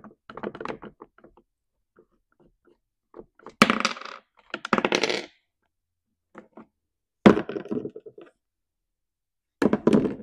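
Metal clicking and clinking in three short spells as the bar nuts are worked off a Stihl MS 271 chainsaw's clutch cover. Near the end the loose steel nuts clink as they are set down on the workbench.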